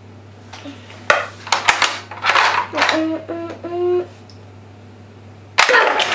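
Hard plastic toy clatter as the playset's button-fired launcher shoots the toy motorbike out and it rattles down the plastic ramp onto the table, a series of sharp clicks and knocks. This is followed by a short run of four pitched notes stepping upward.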